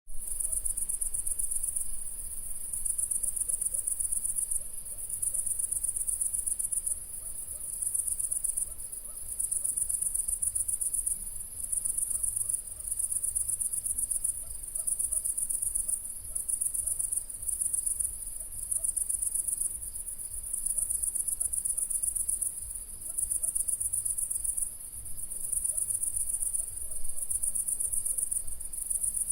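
Crickets chirping at night in a dense, very high-pitched chorus that comes in trills of a second or two with short pauses, over a fainter steady chirring.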